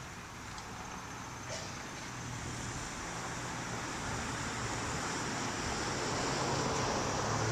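Outdoor wind noise: a steady rushing hiss that slowly grows louder, with a faint low hum beneath it.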